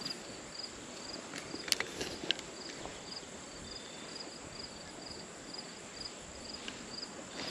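An insect chirping in a steady, even rhythm, about two to three short high chirps a second, over a quiet outdoor background. A few faint clicks fall in about a second and a half to two and a half seconds in.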